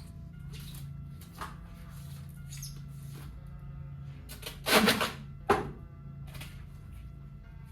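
Steady low hum with scattered clicks and knocks of work going on. A louder scraping rasp comes about five seconds in, followed by a sharp click.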